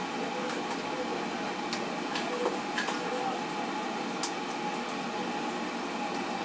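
A steady hum runs throughout, with a few light clicks and knocks as the scale-encrusted heating element of an electric water heater is worked out through its flange opening.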